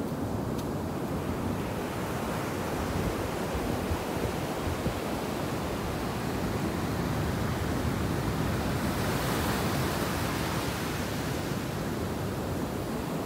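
Ocean surf breaking and washing up a sandy beach, a steady rush of water that swells a little louder about two-thirds of the way through.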